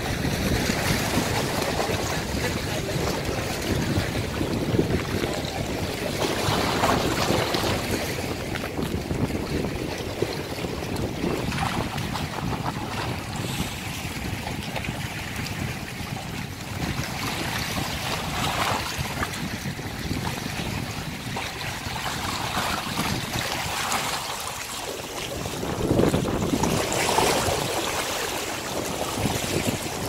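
Small waves lapping and washing against shoreline rocks, swelling every few seconds, with wind on the microphone.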